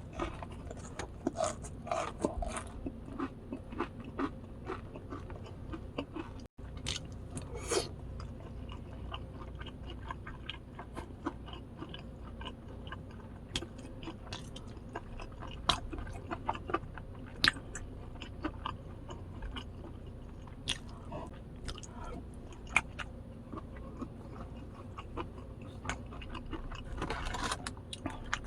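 Close-up crunching and chewing of very crispy boneless fried chicken, with irregular sharp crunches throughout.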